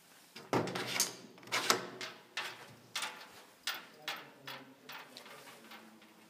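Doors and drawers of a metal workshop cabinet being opened and shut: a quick series of about a dozen knocks and clicks, loudest in the first two seconds and growing weaker toward the end.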